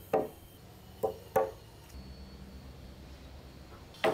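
Mallet blows on a chisel chopping into wood: one sharp knock at the start, a quick pair about a second in, and another near the end, each ringing briefly.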